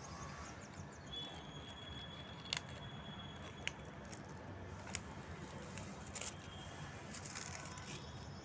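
A few sharp clicks and taps as a plastic shuttlecock tube and its cap are handled and opened, over a steady background hiss.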